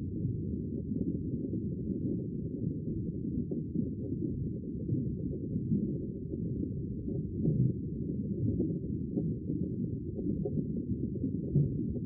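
Muffled, low ocean-water ambience, as heard underwater: a steady wash of water noise with no high end and small irregular swells.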